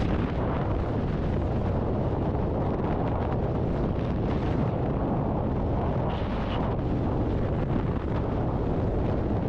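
Freefall wind of a skydive rushing over the camera's microphone: a steady, heavy rumble with short hissier flurries now and then.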